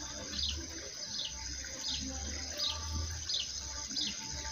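A small bird calling over and over: short, high, falling chirps, roughly one or two a second. Under it runs a steady faint high hiss and a low rumble.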